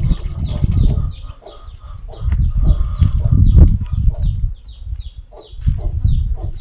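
Chickens peeping and clucking, a steady run of short, high, falling peeps about two or three a second. A low rumbling noise comes and goes under them, loudest in the first second and around the middle.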